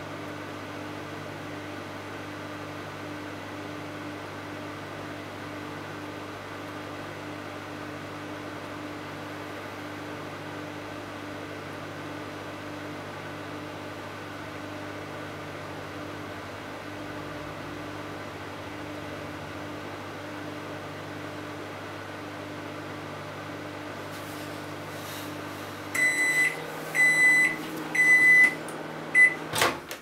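Microwave oven running with a steady hum while heating. The hum stops when the timer runs out about 26 seconds in, followed by several high beeps about a second apart, then a sharp click as the door latch is released near the end.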